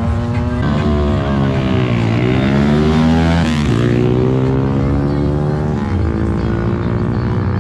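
Motorcycle engines accelerating hard in a drag race, the pitch climbing and then dropping sharply at each gear change, several times over, with more than one engine heard at once.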